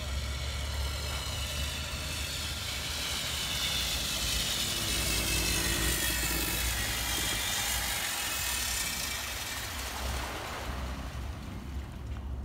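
A wakeboard skimming across the water, its spray hissing louder as the rider passes close, from about four to nine seconds in, then fading, over a steady low mechanical hum.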